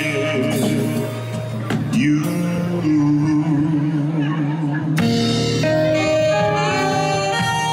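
Live band of drums, electric guitar, saxophone and trumpets playing, with a man singing held notes over it. About five seconds in the music changes abruptly.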